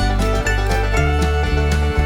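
Upbeat country-style background music with plucked strings and a steady beat.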